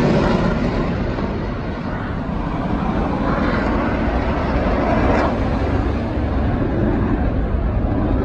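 Airplane engine noise from a distant aircraft in flight, a steady rumbling drone as it flies away.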